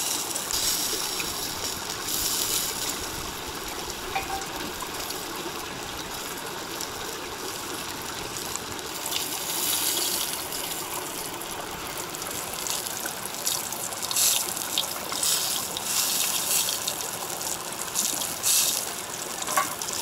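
A creek running steadily over and under rocks, an even rush of water. Several short spells of louder, higher hiss rise over it, mostly in the second half.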